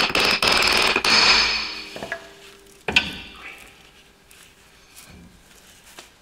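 Skoda Felicia rear brake drum being worked off its hub: metal scraping and rattling with a ringing tone for about two seconds, then one sharp metallic clank about three seconds in, followed by a few faint knocks.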